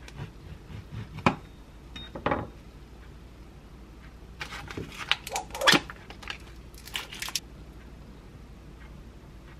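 Food-prep handling on a wooden cutting board: two sharp knocks as a freshly cut bagel and a knife are set down, then about three seconds of crisp crackling and tearing.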